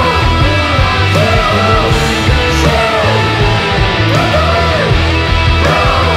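Loud punk rock band music with a heavy, steady bass. Over it a melodic lead line slides up and down in repeated arcs, about once a second, with cymbal crashes.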